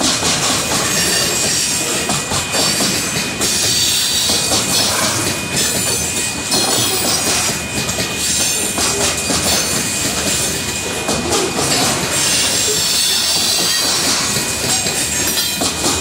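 Grain train's covered hopper cars rolling past close by: a loud, steady rumble and clatter of steel wheels on rail, with a high wheel squeal over it.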